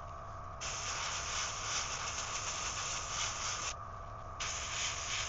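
Airbrush spraying paint in two hissing bursts, the trigger released for a moment near the start and again late on, over a steady low hum.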